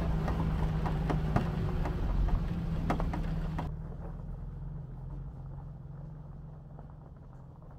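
Old Datsun car's engine running as it drives along a gravel road, with stones crackling and popping under the tyres. About four seconds in it changes to the car heard from behind as it pulls away, its engine fading steadily.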